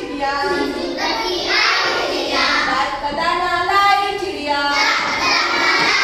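Young children singing a Hindi rhyme together.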